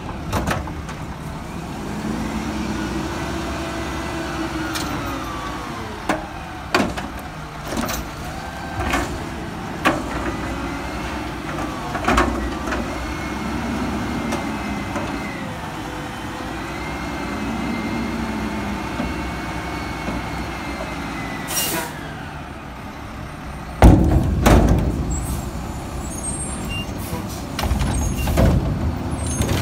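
Front-loading garbage truck with a Curotto-Can carry can running through a dump cycle: the engine revs up and down to drive the hydraulics as the arms raise the can over the cab and bring it back down, with clanks from the can and arms. Late on there is a short air hiss, then a loud bang as the can comes down.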